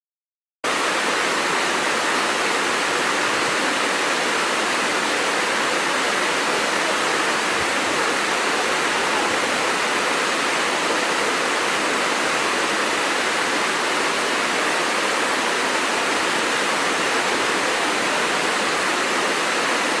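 Waterfall rushing: a steady, dense roar of falling water that cuts in abruptly about half a second in.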